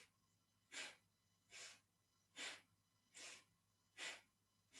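A person breathing in and out in short, sharp, rhythmic breaths, about one every 0.8 seconds, paced to alternating shoulder lifts in a yoga breathing exercise.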